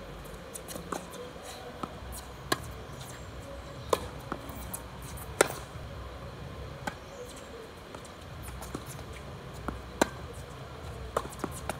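Tennis balls struck by rackets and bouncing on a hard court: a string of sharp pops at uneven intervals, the loudest about five and a half seconds in, with two quick pairs near the end.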